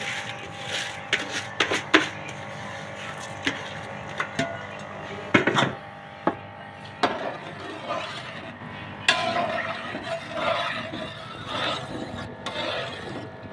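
Soaked rice tipped from a plastic bowl into a large aluminium pot of simmering water, with scattered knocks and clinks against the pot. From about nine seconds in, a metal slotted spoon stirs and scrapes around the pot.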